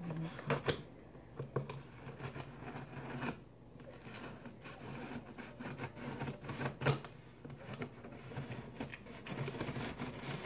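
Scissors cutting open the taped seam of a cardboard shipping box: irregular clicks and scrapes of the blades on tape and cardboard, with a few sharper snaps, the loudest near the middle.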